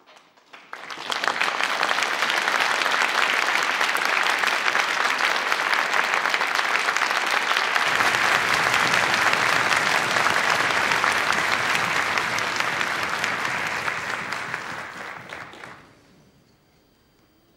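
Audience applauding. The clapping starts about a second in, holds steady, then dies away near the end.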